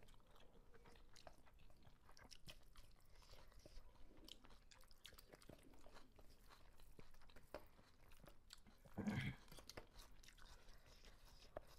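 Faint eating sounds: rice being mixed and scooped by hand in steel plates, with chewing and small wet clicks. A brief muffled voice sound about nine seconds in.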